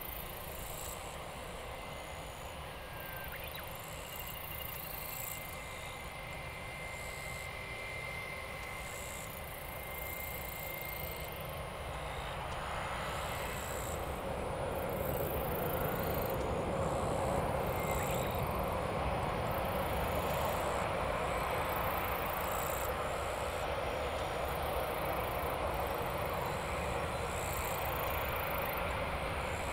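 Jet engines of a Boeing 767 on landing approach, heard from afar: a steady rumble that grows louder from about halfway through as the airliner comes closer.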